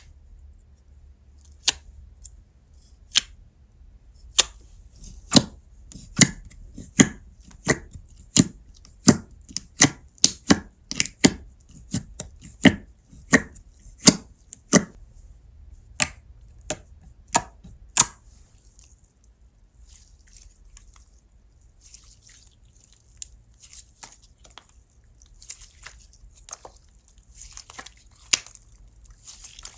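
Slime being pressed and worked by hand, giving a series of sharp pops about once or twice a second for some sixteen seconds. These are followed by softer crackling and crinkling.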